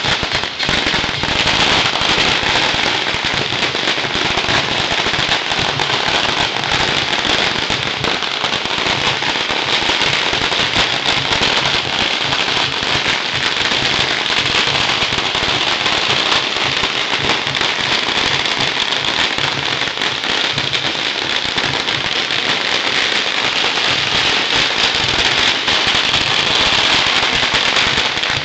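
Long strings of Chinese firecrackers going off in a dense, unbroken rapid crackle of bangs, kept up at an even loudness.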